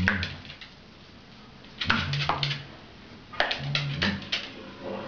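A corgi's claws and paws clicking and scuffing on a hardwood floor in three short flurries: at the start, about two seconds in, and about three and a half seconds in.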